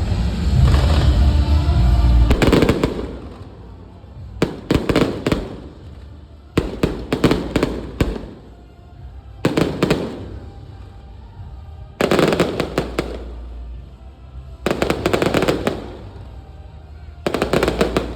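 Aerial fireworks shells bursting in quick clusters of sharp bangs, a new volley every two seconds or so, each trailing off in crackle. Music plays under the opening seconds.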